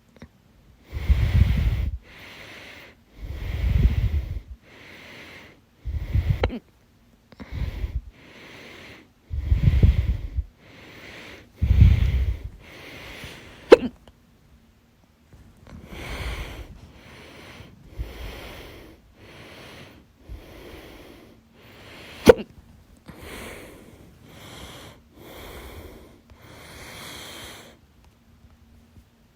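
A woman's hiccups. Her heavy breathing in and out into the microphone, louder in the first half, is broken by two sudden sharp hiccups, one about halfway through and one later on.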